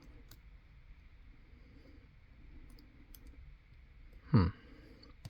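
Lock pick and tension tool working the pins of a brass-cored mortise cylinder lock, making a few faint, scattered metallic clicks. A short vocal sound with a falling pitch about four seconds in is the loudest moment.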